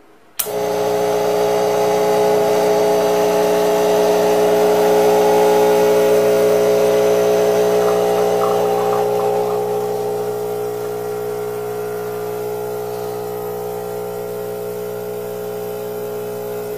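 Expobar Pulser espresso machine's pump switching on with a click about half a second in, then running with a steady, loud hum while brewing an espresso shot. The hum eases slightly in level over the second half as the shot pours.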